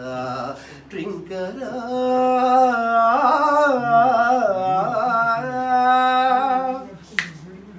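A man singing solo in Carnatic style: one long sustained phrase, holding notes and bending them with wavering ornaments. A single sharp click-like sound comes near the end.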